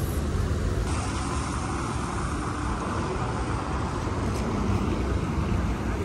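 City street traffic: cars passing on a wet road under a steady low rumble, with tyre hiss growing louder about a second in.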